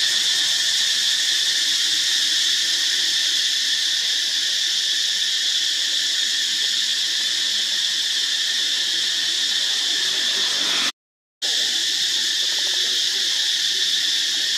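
Steady, high-pitched drone of forest insects in a continuous chorus, cut off completely for about half a second near the end.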